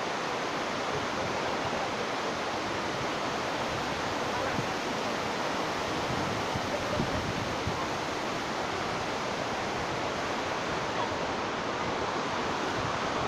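Steady, even rush of falling water from the Tumpak Sewu curtain waterfall, with a few low gusts of wind on the microphone about six to seven seconds in.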